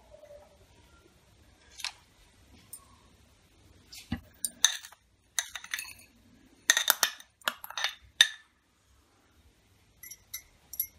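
A metal spoon clinking and scraping against glass bowls as ground snack crumbs are tipped from one bowl into another. The clinks come in short clusters with pauses between them.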